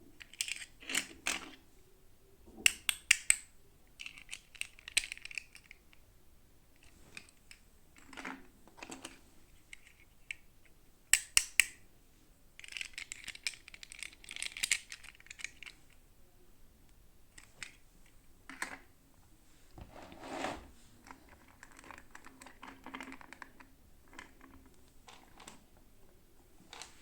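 Hands unboxing small plastic toys: irregular clicks and taps of plastic pieces, with a few bursts of crinkly packaging rustle.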